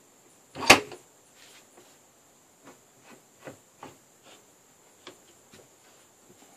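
Workbench clamp parts being handled and set into the bench's dog holes: one sharp knock just under a second in, then a scatter of light taps and clicks.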